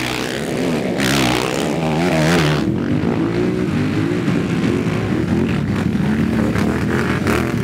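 Several racing quad bikes' engines revving hard, their pitch rising and falling as they accelerate and shift. A louder rushing noise runs for the first few seconds.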